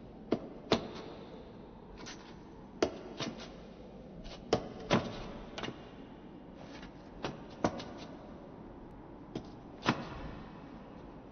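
Slow footsteps of hard-soled shoes on stone stairs: a step or two at a time, mostly in pairs about half a second apart with a couple of seconds between, over a steady hiss.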